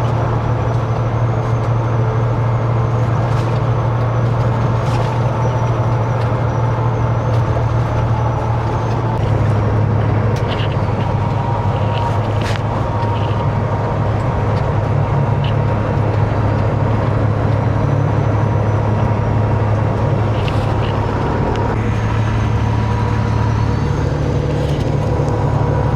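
Peterbilt 389 glider semi-truck's diesel engine droning steadily at highway cruise, heard from inside the cab with road noise. The engine's pitch shifts slightly about nine seconds in and again near the end.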